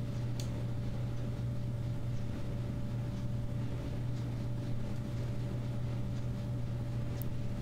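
Steady low background hum with a faint thin steady tone above it, unchanging throughout, with two faint clicks, one just after the start and one near the end.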